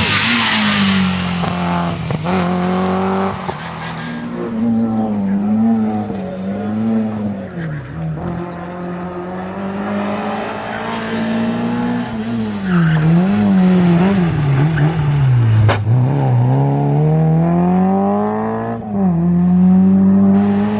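Peugeot 205 rally car's four-cylinder engine, revving up and dropping back again and again as the car is driven hard through the gears, with a single sharp crack about sixteen seconds in.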